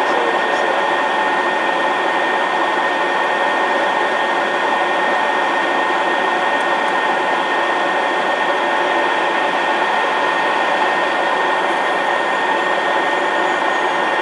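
Eclipse 500 very light jet's twin Pratt & Whitney PW610F turbofans running at taxi power, heard from inside the aircraft: a steady rush with a high, even whine.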